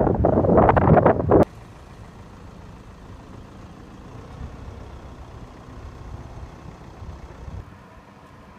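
Wind buffeting the microphone of a moving vehicle, loud for about a second and a half, then cut off abruptly. A much quieter, steady low rumble of the vehicle running at low speed follows.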